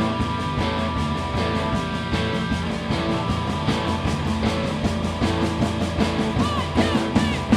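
Indie rock band playing live through an instrumental passage with no vocals: electric guitar over bass and a steady drum beat. Bending guitar notes come near the end.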